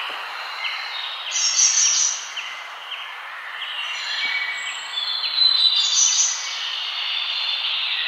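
Several birds singing and chirping, with short repeated chirps and brighter warbling phrases, over a steady background hiss of outdoor ambience.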